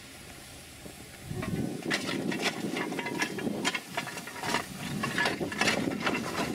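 Lumps of coal clattering and scraping in a steam locomotive's coal tender as they are moved about, in irregular knocks starting about a second in, over a faint steady steam hiss.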